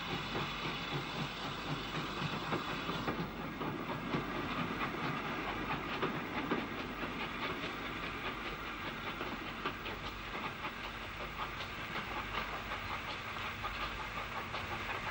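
Steam locomotive hauling a passenger train: a fast clatter of wheels over rail joints and exhaust beats, with steam hiss. The sound changes abruptly about three seconds in.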